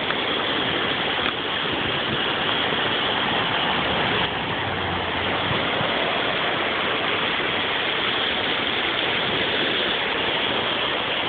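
A river in flood, its fast water rushing steadily.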